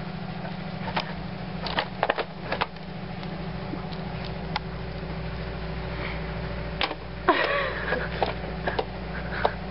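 Scattered light plastic clicks and taps of dolls being handled and set into a toy convertible, with a short louder rustle about seven and a half seconds in, over a steady low hum.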